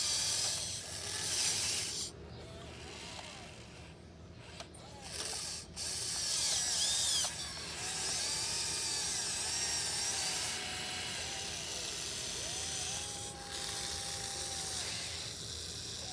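Small electric motors and gearboxes of a 1580 RC excavator whirring in spurts as the arm and bucket move, the whine rising and falling in pitch with each movement.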